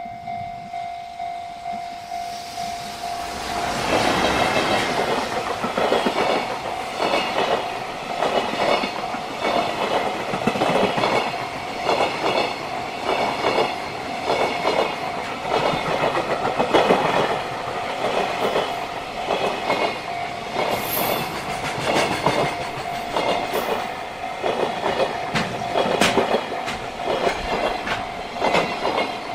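A level crossing bell rings in a steady pulsing rhythm; about three to four seconds in, a JR Freight EF210 electric locomotive arrives and its container wagons roll past, wheels clattering clickety-clack over the rail joints while the crossing bell keeps ringing underneath.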